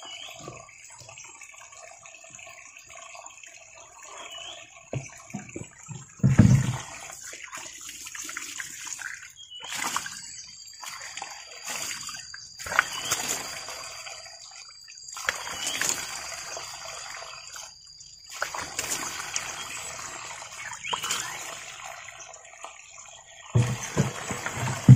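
Water splashing and pouring in short bursts every two to three seconds, over a steady high whine with a few small chirps; a heavy thump about six seconds in is the loudest sound.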